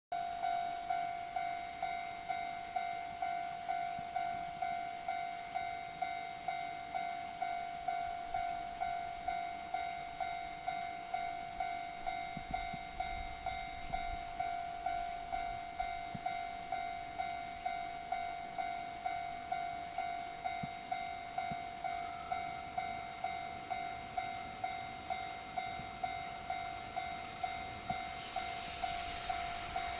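Japanese level-crossing warning bell ringing steadily, about two strikes a second, as the crossing is closed for an approaching train. Near the end the rushing noise of the oncoming train begins to rise under it.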